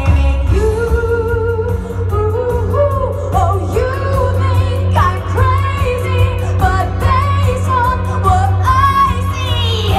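A woman singing a musical-theatre song through a headset microphone, with held, wavering notes over instrumental accompaniment with a heavy, steady bass.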